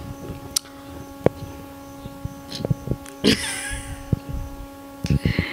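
A short laugh about three seconds in, with a few soft clicks, over a steady electrical hum.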